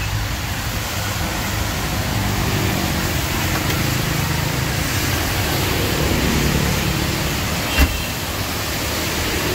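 Steady road traffic on a wet road, with a vehicle engine's hum swelling through the middle. Just before the end, a single sharp thump as the Honda sedan's trunk lid is slammed shut.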